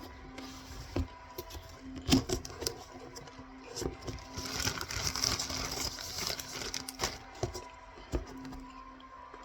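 Cornstarch being eaten: a few sharp clicks and taps, the loudest about two seconds in, and a longer gritty crunching stretch around the middle, over a faint steady hum.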